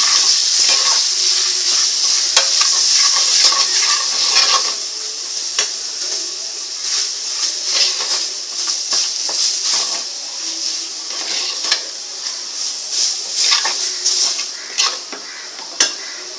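Masala paste frying in oil in a pan, stirred with a spatula that scrapes and knocks against the pan many times. The sizzle gradually grows quieter.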